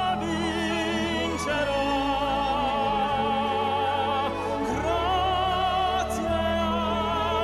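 Background music: a sustained operatic voice singing with vibrato over orchestral accompaniment.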